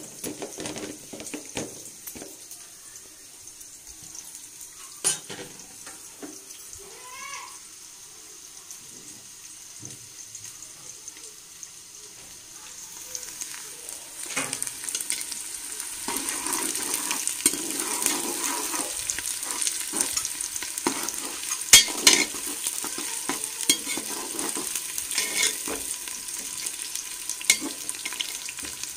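Sliced onions sizzling as they fry and brown in hot ghee in a steel pot, with a metal slotted spoon clinking and scraping against the pot as they are stirred. The sizzling grows louder about halfway through.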